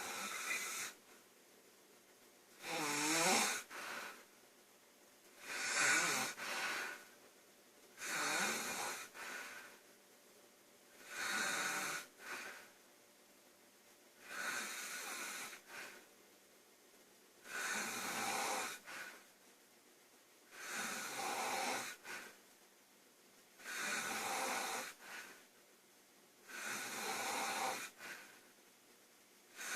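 A girl snoring loudly in a steady rhythm, one snore about every three seconds, each followed by a short second breath sound.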